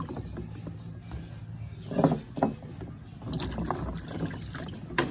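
Water sloshing and splashing in a plastic basin as hands rub and swirl calamansi fruits to wash them, coming in uneven bursts.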